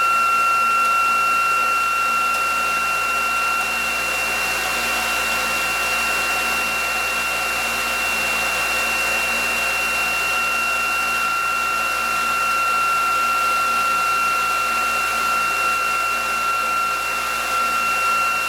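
ReGenX generator test rig running, its electric prime-mover motor spinning the rotor with a steady two-tone high whine over a rushing hiss, while the generator output is switched onto load.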